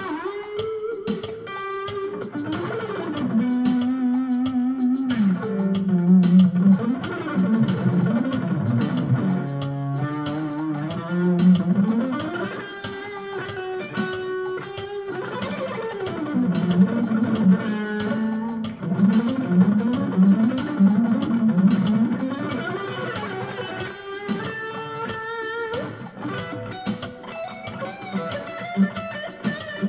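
Electric guitar with ceramic pickups played through a Cube-10 amp in its crunchy Classic Stack mode, improvising single-note lines that slide and bend in pitch. An Alesis drum machine keeps a steady Latin-funk groove underneath.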